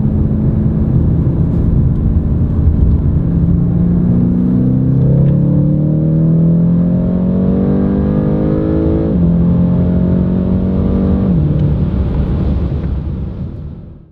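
BMW M8 Competition's twin-turbo V8 under acceleration: revs climb through a gear, drop sharply at an upshift about nine seconds in, climb again, then fall off about two seconds later. The sound fades out near the end.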